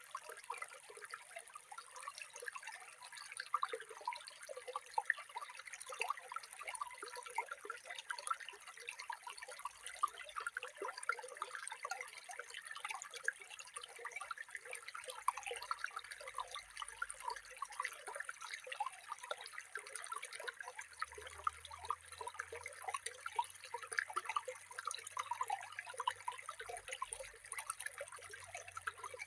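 Running water splashing steadily, a dense patter of many small drops and splashes.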